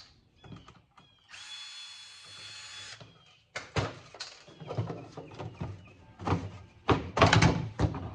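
A power drill/driver runs in one steady whine for about a second and a half, backing screws out of a stereo equalizer's case. It is followed by a run of metal knocks and clatter from the casing and parts being handled, loudest near the end.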